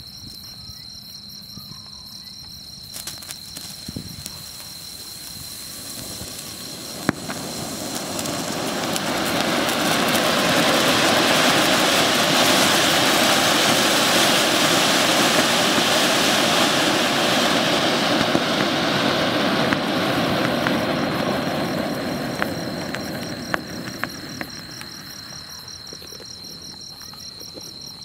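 Large clay-pot flower-pot firework (matka anar) spraying sparks: a rushing hiss that swells from about seven seconds in, holds loud for about ten seconds, then dies away, with scattered crackles and pops. Crickets chirp steadily underneath at the start and end.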